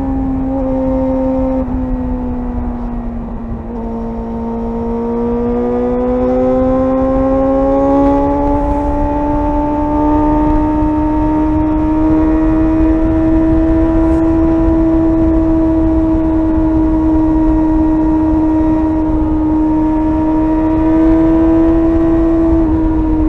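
Suzuki GSR 600's inline-four engine running at high revs under way. The pitch sags for the first few seconds, climbs gradually for several seconds more, then holds steady, with a brief dip near the end. A low wind rumble sits underneath.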